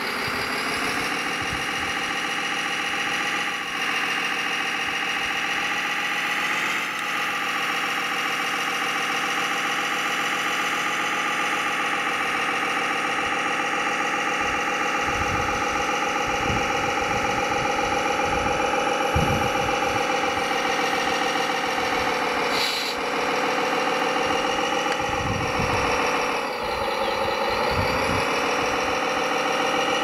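Simulated diesel engine sound of a scale RC heavy vehicle, running steadily at a low, even speed, with a brief dip and rise in pitch about 26 seconds in and again at the end.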